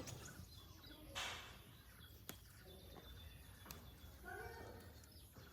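Near silence, with a brief hiss about a second in, a single faint click, and a faint distant call near the end.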